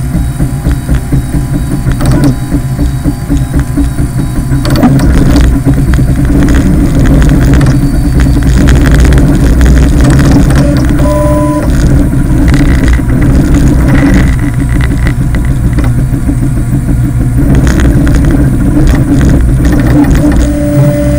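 3D printer running, a steady low rumble with short pitched whines from its stepper motors that change pitch as the head moves.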